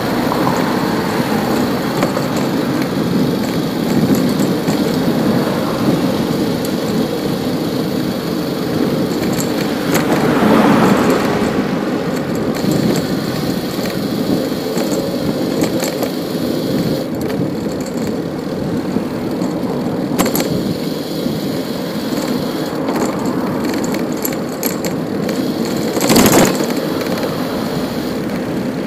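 City street traffic and road noise heard from a moving bicycle, with a louder vehicle passing about ten seconds in. A short sharp knock near the end.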